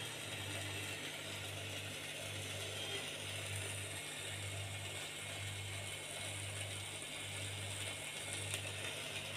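Electric sandwich maker heating a sandwich: a faint steady hiss of steam escaping from the closed plates, over a low electrical hum that pulses on and off about once a second.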